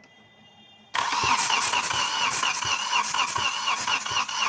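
Starter motor cranking the Hyundai Grand i10's three-cylinder diesel engine, cutting in suddenly about a second in with a steady rhythmic churn of a few strokes a second. The engine does not fire: the injector couplers are unplugged, so the cranking only pushes diesel through the lines to bleed air from the injectors.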